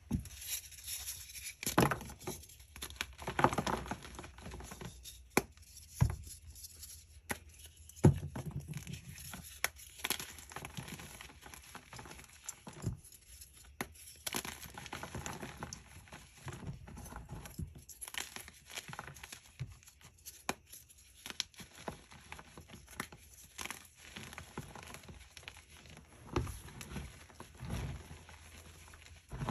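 Dyed gym chalk blocks snapped apart and crushed by hand. Several sharp snaps come in the first eight seconds or so, the loudest about eight seconds in, over a steady dry crunching and crumbling of chalk chunks and powder.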